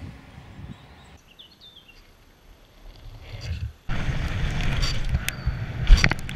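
Quiet woodland with a few brief bird chirps, then about four seconds in the sudden loud noise of a mountain bike riding fast down a dirt trail, heard close to the bike. Its tyres rumble over the ground, the bike rattles, wind buffets the microphone, and there is a sharp knock over a bump near the end.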